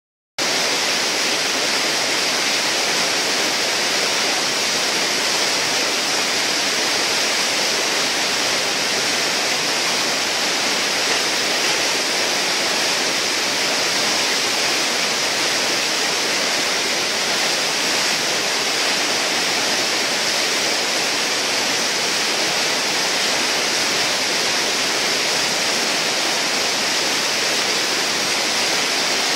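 River whitewater rushing steadily through a rapid's hole, a loud even hiss of moving water.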